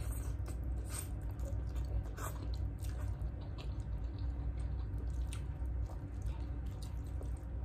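People chewing and eating spicy instant ramen noodles, with small scattered clicks of mouth and utensil sounds over a steady low hum.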